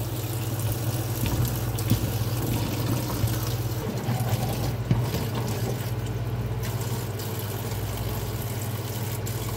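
Kitchen tap running in a steady stream into a plastic colander of chickpeas in a stainless steel sink, with a hand stirring and rubbing the wet chickpeas under the water to loosen their skins and a few light knocks. A steady low hum runs underneath.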